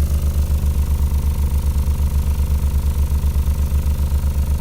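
Neodymium-motor subwoofer driven hard with a very low sine tone on its first test run, its output pulsing evenly about eight times a second, with air rushing out of the gaps around the ill-fitting box.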